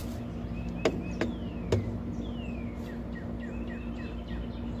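Birds calling: short repeated chirps and a couple of descending whistled notes, over a steady low hum. Three sharp clicks in the first two seconds as a steel square is set against the jigsaw's blade and shoe.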